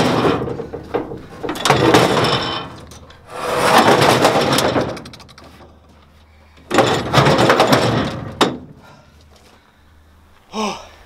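Rusty steel truck-bed panel being pushed by hand across other metal panels, scraping in four long strokes of a second or so each, with a sharp knock near the end of the last one.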